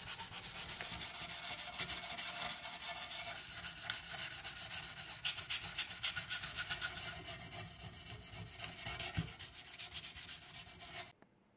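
A stiff hand brush scrubbing the rough, sandblasted face of a cast-iron sign in rapid back-and-forth strokes, a dense scratchy rubbing that stops abruptly near the end.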